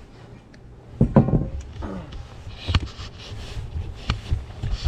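Sharp knocks and clatter of fishing gear and a fish being handled in a small boat, three or four distinct knocks, over a steady low wind rumble.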